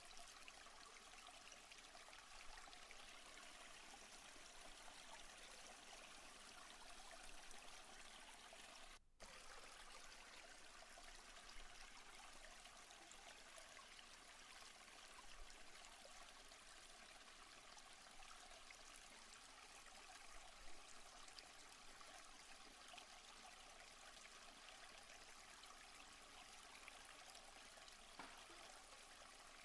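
Faint, steady rush of a stream's running water, with a brief dropout about nine seconds in.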